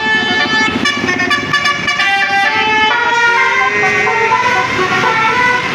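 Indonesian bus basuri musical horn playing a tune: a run of held horn notes stepping in pitch, with sliding notes in the second half.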